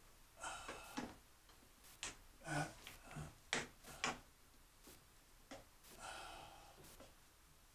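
Scattered light clicks, taps and short rustles of PEX pipe and fittings being handled and pushed together for a dry fit.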